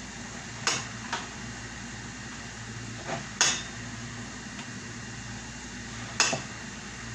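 Kitchenware knocking and clinking against a bowl: five sharp knocks, two about a second in, two around three seconds in and one near the end, over a steady low hum.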